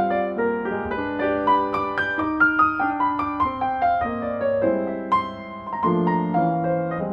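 Background piano music: a gentle melody over chords, notes struck one after another.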